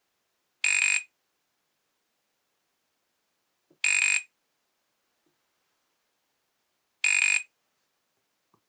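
Nokia E63 mobile phone playing an electronic alert tone: three short high beeps, evenly spaced about three seconds apart.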